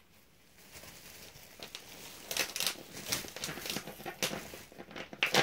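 A dog's pee pad being unfolded, crinkling and rustling in uneven crackles that grow louder from about two seconds in.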